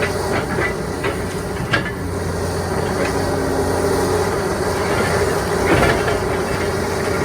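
Backhoe's diesel engine and hydraulics running steadily under load, with a few short knocks and crunches of demolition debris, the loudest about six seconds in.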